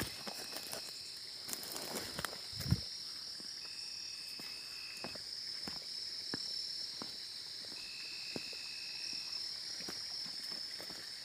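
Steady high-pitched chorus of night insects, with a second caller giving a level note about a second and a half long, twice. Over it come footsteps and rustling through dry brush, with a heavier thump about three seconds in.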